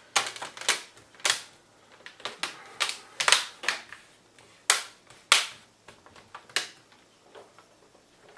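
Plastic screen bezel of a laptop being pressed back onto the lid, its clips snapping into place with about a dozen sharp clicks at irregular intervals.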